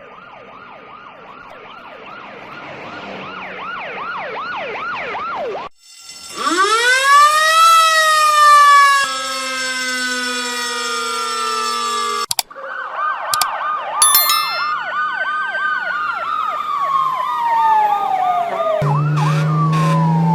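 Emergency-vehicle sirens in quick succession: a fast yelp of rapid up-and-down sweeps growing louder, then cut to a wail that rises and slowly falls, then a fast yelp over a slow rising-and-falling wail. Near the end a low, steady horn sounds under a gliding siren.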